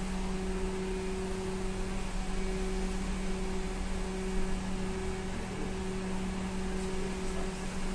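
Cabin sound of an SVARZ-MAZ-6275 trolleybus: a steady electrical hum with a low tone and a fainter tone about an octave above, over a constant rushing noise.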